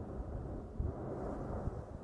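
Deep, continuous volcanic rumble with irregular dull thumps, about a second in and again near the end.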